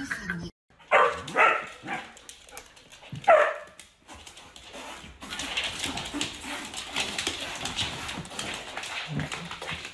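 A dog barks several times, the last bark falling in pitch. Then comes a busy scuffling and rustling of a golden retriever and a husky tussling.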